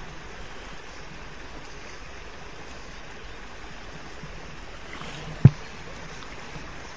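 A small, shallow stream flowing steadily, with a single sharp knock about five and a half seconds in.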